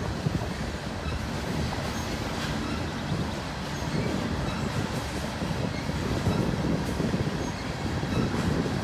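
Loaded coal cars of a unit coal train rolling along the track: a steady rumble of steel wheels on rail.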